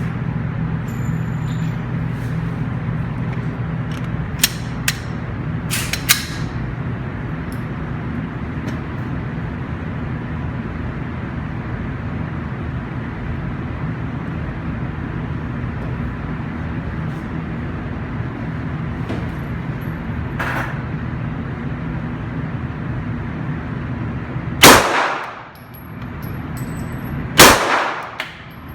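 Two handgun shots fired near the end, about three seconds apart, each loud and sharp with a ringing tail, over a steady background noise; a few small clicks of handling come earlier.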